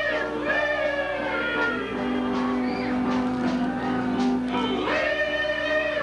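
Live band playing with several voices singing together in long held notes over keyboard and drums.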